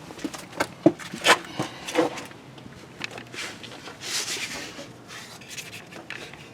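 Hand tools being handled and fitted from below the transmission: a few sharp metallic clicks and knocks in the first two seconds, then a longer scraping, rustling sound around the middle.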